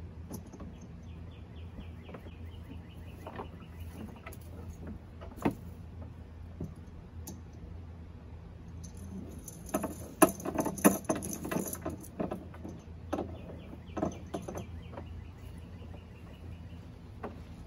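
Small metal pulley and its hardware clinking and rattling as it is handled and rigged with rope at a canoe's leeboard bracket: scattered clicks, one sharp one about five seconds in, and a quick run of clinks around ten to twelve seconds in.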